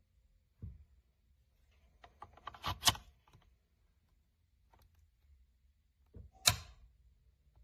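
Small clicks and knocks from handling a metal camera clip and its quick-release plate. A soft knock comes first, then a quick run of small clicks ending in a sharp one, and after a pause another sharp click.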